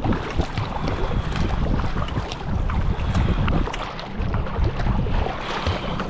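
Wind buffeting the microphone on a moving kayak, with water splashing and lapping against the hull.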